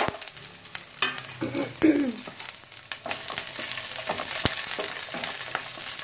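Sliced garlic and green chillies sizzling in hot oil in a kadhai, with a spatula clicking and scraping against the pan in the first half. From about three seconds in, a steady frying sizzle.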